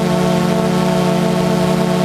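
DJI Phantom 2 quadcopter's motors and propellers spinning at a steady speed with the drone on the ground: a constant, unchanging hum.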